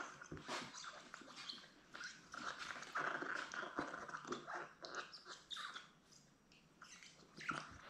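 Seven-week-old Labrador retriever puppies playing with plush toys: irregular chewing and mouthing noises with scuffling on the blanket and floor.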